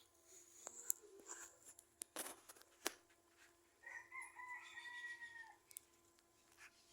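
A rooster crowing once, faintly, for under two seconds about four seconds in. A few faint clicks and a short rustle come before it.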